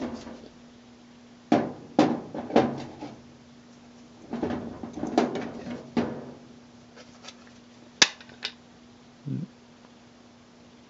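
Irregular clicks, knocks and clatter of hard plastic parts being handled and fitted together as new nylon agitator dogs are set into a washing machine's agitator cam, with a sharp click about eight seconds in and a duller knock shortly after.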